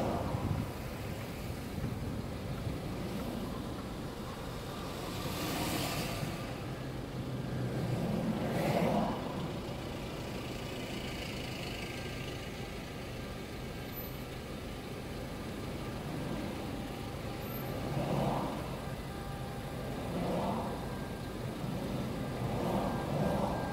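Car engine and road noise heard from inside the cabin while moving slowly in queuing traffic, with a steady low hum and a couple of rushing swells about six and nine seconds in.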